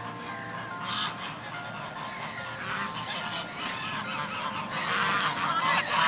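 Birds calling repeatedly, the calls growing louder near the end, over soft background music with held chime-like notes.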